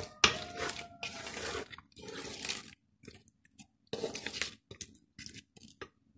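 Wooden spoon stirring a thick, wet chicken masala in a metal pot, mixing in ghee: four scraping, sloshing strokes of about half a second each, then a few short knocks of the spoon near the end.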